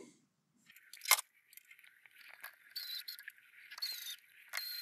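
A precision electric screwdriver's small motor whirring in three short spurts, driving screws to fasten a circuit board into a stereo receiver's metal chassis. A sharp click about a second in is the loudest sound.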